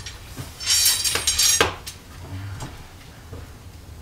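Pieces of a hand-forged iron cooking rack clanking and scraping together as they are handled. The clatter is loudest about a second in and ends with a sharp clink, followed by a few lighter knocks.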